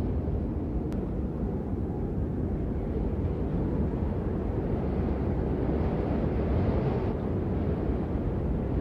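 Steady low rumble of wind noise with no pitch to it, holding an even level throughout.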